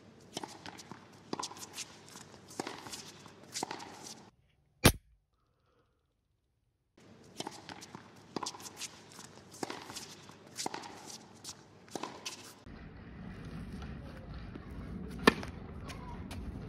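A clicky typing sound effect, irregular key clicks, plays over the captions as they type out. In the silent gap between bursts comes a single loud sharp hit. Near the end, background noise sets in with one sharp knock.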